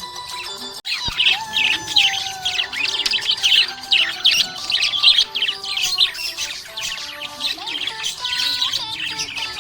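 Budgies chirping in a rapid, busy stream of short high chirps, starting abruptly about a second in.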